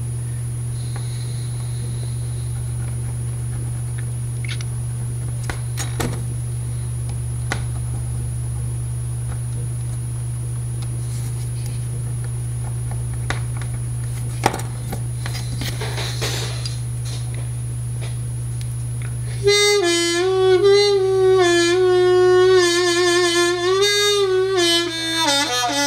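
A steady low hum with a couple of faint clicks, then, about twenty seconds in, a Seydel 1847 harmonica in A is played: a short phrase of notes that step and bend up and down. Its freshly embossed reeds play and bend cleanly.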